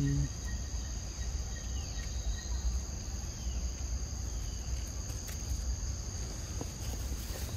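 Steady high-pitched chorus of insects, two unbroken tones held throughout, over a low rumble.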